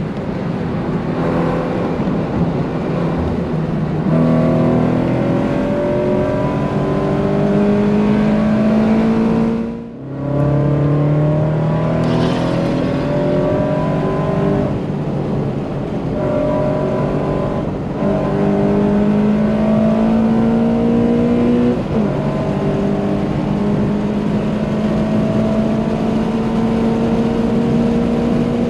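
Subaru BRZ's naturally aspirated flat-four, with an unequal-length header and catless exhaust, heard from inside the cabin at full throttle on track: the engine note climbs steadily through each gear and drops back at each upshift, every few seconds.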